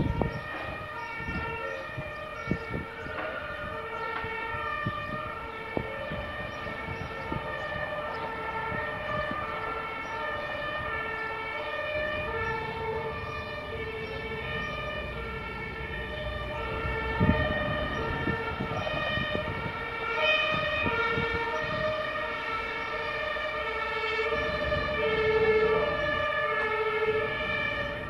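Two-tone emergency vehicle sirens, the German Martinshorn, sounding continuously and switching between a high and a low note about every half second, with more than one siren overlapping. A loud knock at the very start and a few low bumps on the microphone.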